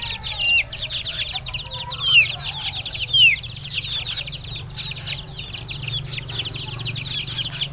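Chickens peeping and chirping: a dense run of many quick, high-pitched calls, with two louder chirps about two and three seconds in, over a low steady hum.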